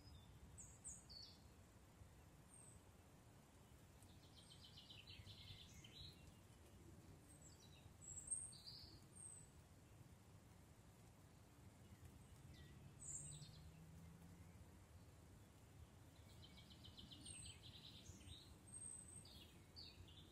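Faint woodland birdsong: scattered short, high chirps and two brief rapid trills, over a low steady background rumble.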